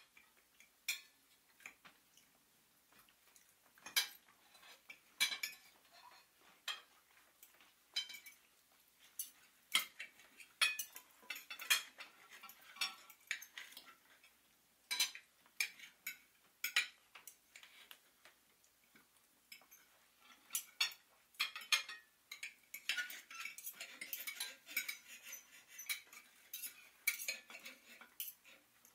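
Irregular clinking and clattering of cutlery and dishes, sharp clicks at uneven intervals that become busier and more continuous near the end.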